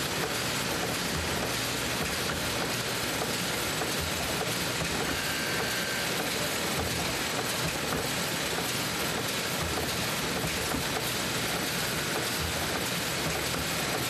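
Steady mechanical running noise of a banknote sheet-handling machine conveying printed currency sheets across its steel table, an even hiss-like din with no clear rhythm or pauses.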